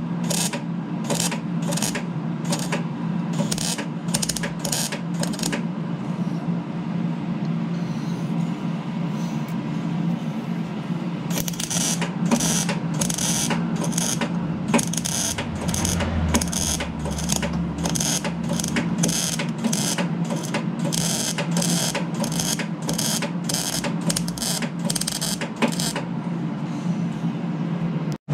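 MIG welder laying short tack welds on a holed chainsaw muffler: brief bursts of arc crackle at about two a second, stopping for several seconds and then running on in a long series, over a steady low hum.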